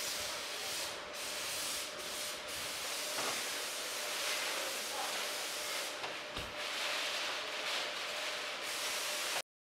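Steady hiss of assembly-line background noise with a faint steady hum and a soft thump about six seconds in; it cuts off abruptly near the end.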